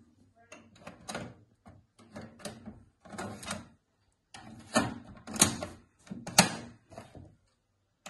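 Plastic clicks and clacks of a Kenwood KXF-W4030 double cassette deck being worked by hand: transport buttons pressed, the cassette doors opening and shutting, and a cassette taken out and put back in. A string of short separate knocks, with a few sharper clacks about five and six and a half seconds in.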